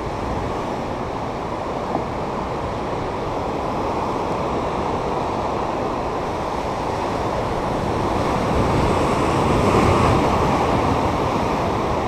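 Ocean surf breaking against a rocky lava shoreline, a steady wash with wind on the microphone; a wave swells louder about nine to ten seconds in.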